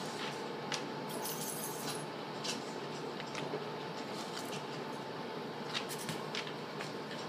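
Dogs moving about: a brief light metallic jingle and scattered soft clicks, over a steady background hum.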